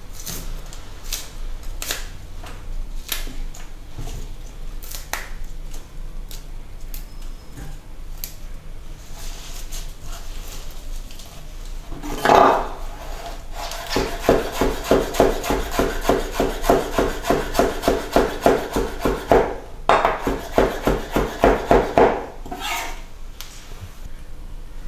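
Knife chopping fresh mint on a wooden cutting board: a few scattered taps and rustles at first, then about halfway through a fast, even run of chops, with a brief break partway.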